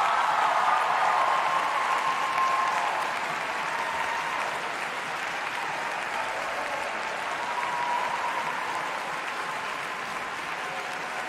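Large arena crowd applauding at the close of a figure skating program, a standing ovation. The applause is loudest at the start and eases off a little.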